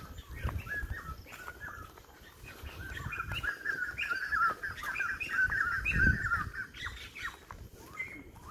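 Forest birds chirping and calling, short rapid chirps that thicken into a dense twittering run in the middle. A few low thumps, the strongest about six seconds in.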